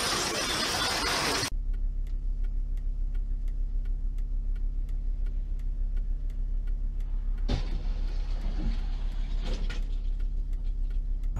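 Loud street noise for the first second and a half. Then a steady low in-car drone with faint regular ticking. About seven and a half seconds in comes a sudden crash as a car slams into a traffic-light pole at the roadside, followed by rattling debris noise.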